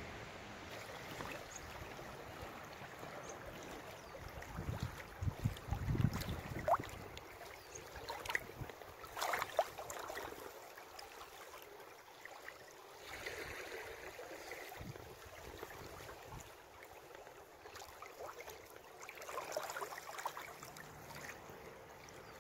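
River water lapping and gurgling against the hull of an inflatable packraft as it drifts, with small splashes scattered through. A few dull low thumps come about five to seven seconds in.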